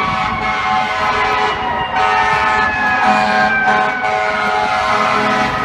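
FDNY fire apparatus siren wailing: its pitch peaks at the start, falls slowly over about five seconds, and begins rising again near the end, with steady lower tones beneath.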